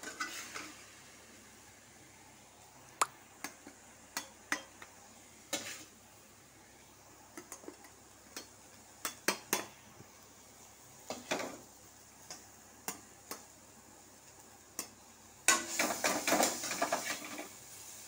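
Perforated metal ladle clinking and scraping against an aluminium wok and a steel bowl while cooked greens are scooped out. Scattered single clinks, then a dense clatter of scraping near the end.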